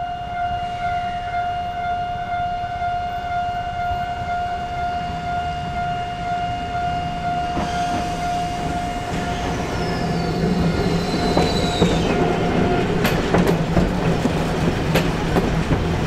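Japanese level-crossing alarm ringing steadily as a Randen tram approaches and passes from about halfway through. Its motor hum and running noise rise, with a high falling wheel squeal, then clacks of the wheels over rail joints as the alarm stops near the end.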